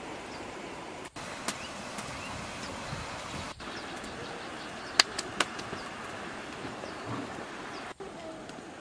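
Steady outdoor background with faint short chirps and a few sharp clicks or knocks, the loudest two close together about five seconds in.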